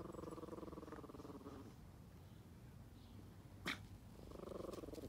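Yorkshire terrier growling faintly: a low, pulsing growl that stops about a second and a half in and starts again near the end. A single short, sharp click falls in the pause between.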